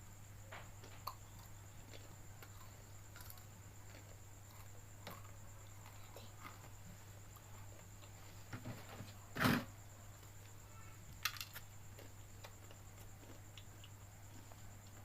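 Quiet eating sounds: scattered small mouth and utensil clicks, with a louder short knock about nine and a half seconds in and a couple of lighter ones around it, over a steady low hum.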